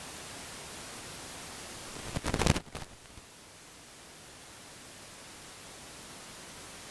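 Steady hiss of the microphone and recording system. About two seconds in, a short, loud burst of crackling clicks breaks it. After that the hiss is lower and slowly builds back.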